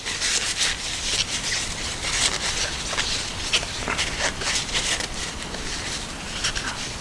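Paper towel wet with isopropyl alcohol being rubbed over a knife liner: repeated wiping strokes with the rustle and crinkle of the paper.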